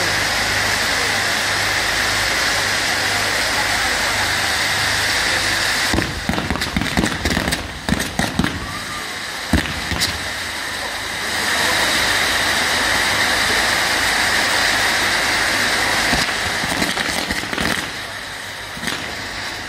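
Spinning ground firework wheels jetting sparks with a loud, steady hissing rush, broken by runs of sharp bangs and crackles from about six to eleven seconds in and again near the end.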